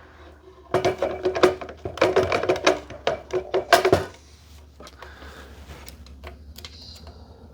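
Quick run of metal clicks and ringing clanks for about three seconds as a microscope nosepiece is handled and slid back into its mount, then a few faint clicks.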